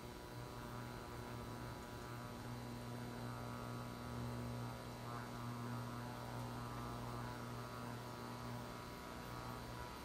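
Frigidaire Gallery FGIC3066TB induction cooktop running on Power Boil: a steady hum, with its internal cooling fan running to cool the electronics, which makes it very noisy.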